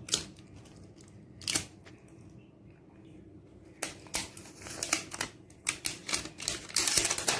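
Clear plastic protective wrap being picked at and peeled off a new smartphone by hand, heard as scattered clicks and crinkles that grow frequent from about halfway through and are densest near the end.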